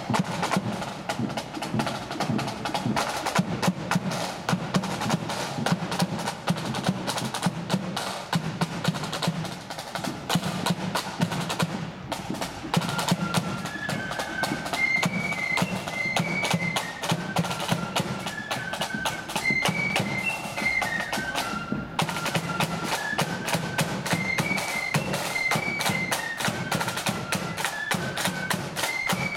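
Marching band playing: fast snare drumming over a steady bass drum beat, joined about halfway through by a high-pitched melody.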